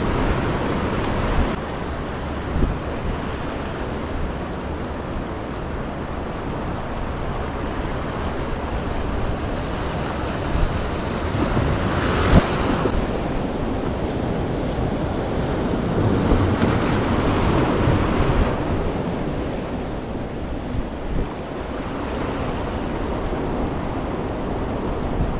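Sea surf breaking and washing over the rocks of a breakwater, with wind buffeting the microphone. The wash swells louder about halfway through and again a few seconds later, and there is a single sharp knock about halfway through.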